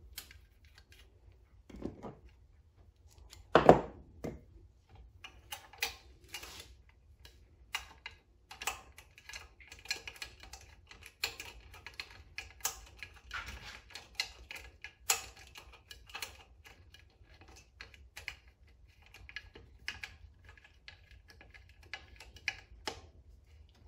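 Hands fitting a plastic air cleaner back cover onto a small engine and starting its screws: irregular light clicks and taps of plastic and small screws, with one louder knock about four seconds in.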